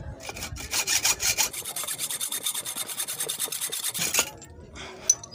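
Quick back-and-forth strokes of a hand-held hacksaw blade cutting off the excess end of a homemade thread insert made from a car tyre valve, seated in a motorcycle engine's aluminium cylinder. The sawing stops about four seconds in.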